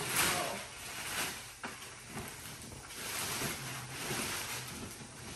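Clear plastic packaging bag rustling and crinkling as it is handled and pulled, in uneven swells, with one sharp click about a second and a half in.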